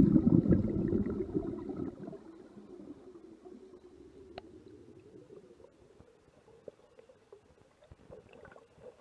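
Muffled underwater rumbling and gurgling of water picked up by the camera. It is loud for about the first two seconds, then fades to a faint hiss with a few small clicks.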